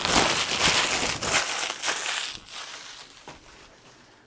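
Packaging being crinkled and rustled by hand while an item is pulled out of the box. It is loud for about the first two seconds, then dies away.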